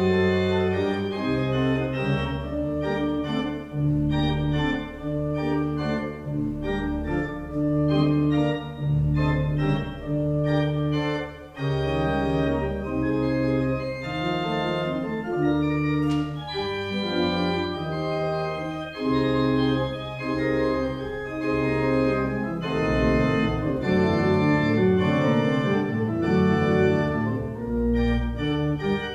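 Church pipe organ playing: sustained chords over low pedal bass notes, the harmony moving every second or two.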